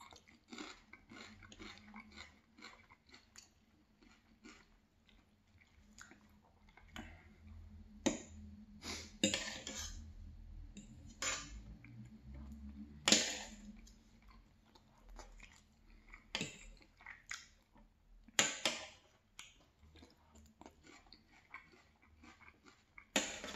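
Close-miked chewing and mouth sounds of someone eating rice and salad. Knife and fork clink and scrape on a plate, with a few sharper clicks standing out now and then.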